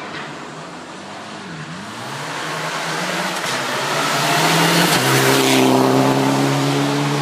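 Rally car coming flat out down a gravel forest stage, its engine note dipping and climbing through gear changes as it nears. It grows louder, passes close about five seconds in with a drop in pitch and a rush of tyre and gravel noise, then pulls away.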